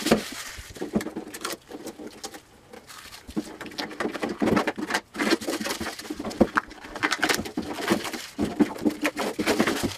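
Rubbery Plasti-Dip coating being peeled by hand off a car's sheet-metal trunk lid: a dense run of short, irregular tearing and crackling sounds.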